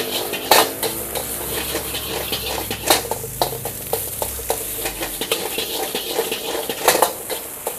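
Fried rice sizzling in a hot steel wok as it is stirred and tossed with a metal ladle. A few sharp clanks of the ladle on the wok ring out: about half a second in, near three seconds, and near the end.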